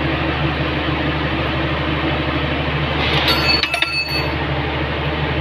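Steady drone of running mill machinery such as pumps, with a short run of sharp metallic clinks that ring out, about three seconds in.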